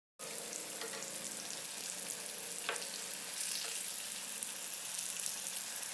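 Chicken sausages sizzling steadily in hot oil and spice masala in a frying pan as they are stirred with a spoon, with one short tap about two and a half seconds in.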